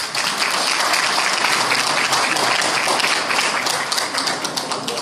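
Audience applauding: many hands clapping together. It starts suddenly and thins out near the end.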